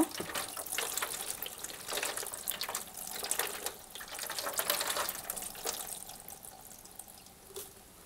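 Water poured from a kettle into a tumble dryer's lint-clogged condenser unit, splashing and trickling through it to rinse out dried lint. The pouring dies away in the last couple of seconds.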